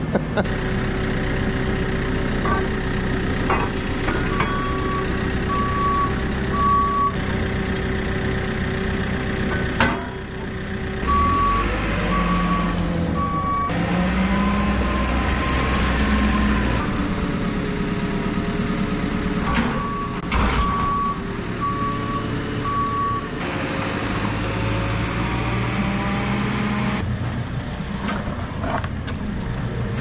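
A JCB farm machine's reversing alarm beeping in several runs of regular, evenly spaced beeps. Under it the machine's diesel engine runs, its pitch shifting as it revs, with a few sharp knocks.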